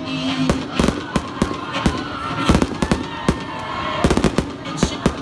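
Fireworks going off: many sharp bangs at irregular intervals, some in quick clusters.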